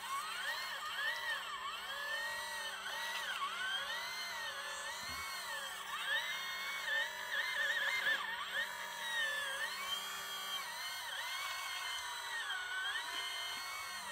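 Radio-controlled hydraulic model excavator's electric pump whining as the boom and bucket dig mud. The whine's pitch dips and rises again and again.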